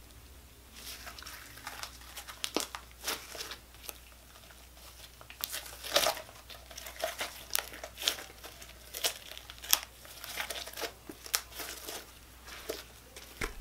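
Homemade glow-in-the-dark glue slime being stretched, folded and squeezed by hand, giving irregular soft crackles and pops that begin about a second in, the loudest about six seconds in.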